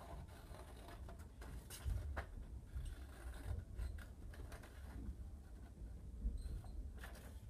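Scissors snipping through white paper, a run of irregular short cuts.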